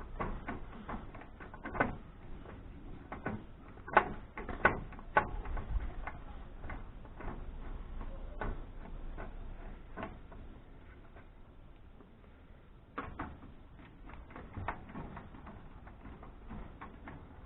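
Irregular clicks and knocks of hand tools against the metal parts of an amplifier being taken apart, its screws being worked out. A few sharper knocks come about four to five seconds in, and another near thirteen seconds.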